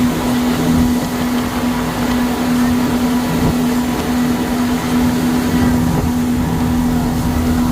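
Speedboat's outboard engines running at a steady cruising speed, one constant hum over the rush of water and wind.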